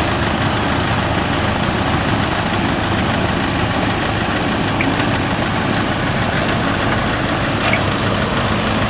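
Diesel engine of a Kubota DC70 rice combine harvester running steadily at a low, even speed.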